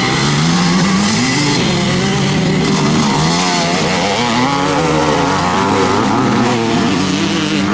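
Engines of several classic motocross motorcycles racing, their pitch rising and falling again and again as the riders open and close the throttle.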